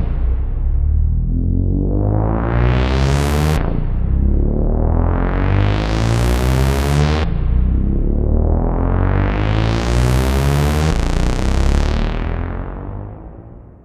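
Moog Minimoog analog synthesizer playing a repeating low bass pattern with a bright, buzzy tone, its filter sweeping slowly closed and then open again about every three and a half seconds. The sound fades out near the end.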